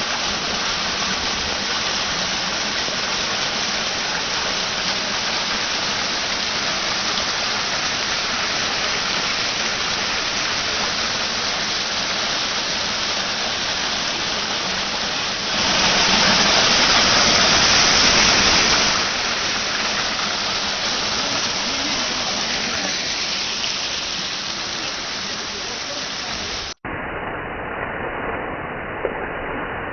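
Steady rushing of a waterfall, louder for a few seconds about halfway through. Near the end it cuts abruptly to a duller, more muffled rush.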